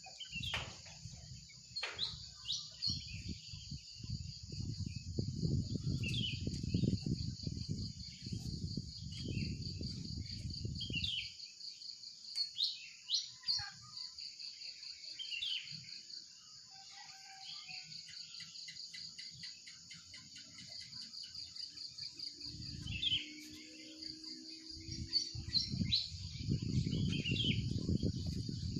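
Varied songbirds chirping and calling, many short notes and quick down-sweeping phrases, over a steady high pulsing trill. A low rumbling noise runs under it for the first ten seconds or so and again near the end.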